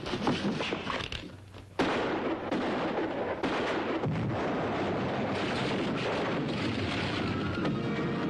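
A few sharp cracks, then, about two seconds in, a dynamite explosion goes off suddenly and carries on as a long rumble of debris crashing down. Dramatic music comes in near the end.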